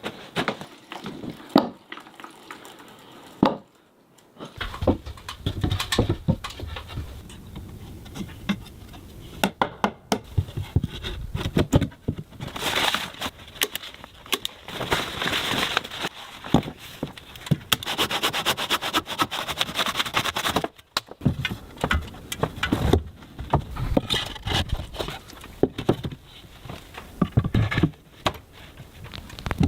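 Hand woodworking: irregular knocks and taps on wood, with longer stretches of scraping and rasping in the middle.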